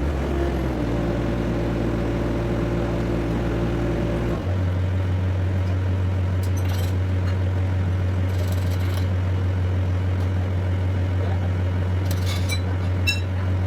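Doosan excavator's diesel engine running steadily, its low note shifting abruptly about four and a half seconds in. A few light clicks sound near the end.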